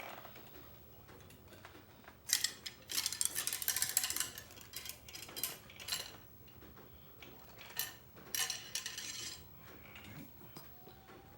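Cleaning rod with a patch being worked through a muzzleloader barrel: bursts of metallic scraping and clinking, the longest a couple of seconds in, with shorter ones later.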